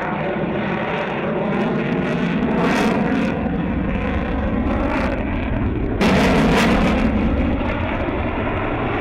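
F-22 Raptor fighter jet in flight: steady jet engine noise that turns louder and harsher about six seconds in.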